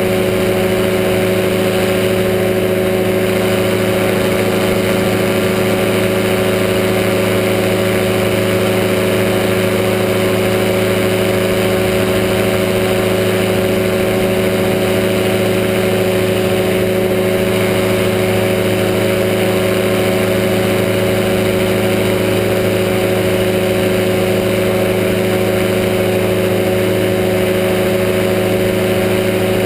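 Powered parachute's engine running steadily at constant power in flight, heard close up from the pilot's seat: a loud, even drone with no change in pitch.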